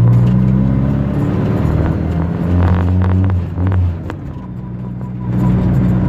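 Fiat 147's four-cylinder engine running through a cheap homemade modified exhaust, heard from inside the cabin while driving. The steady engine note eases off about four seconds in and pulls strongly again about a second later.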